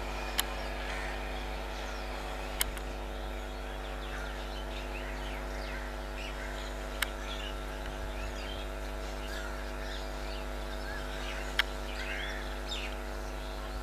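Birds chirping and calling over a steady low hum, with a few sharp clicks.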